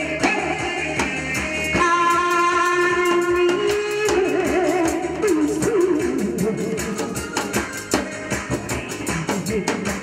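Korean trot song playing loudly: a singing voice holds long wavering notes over a band accompaniment, with a quick steady drum beat that grows busier about halfway through.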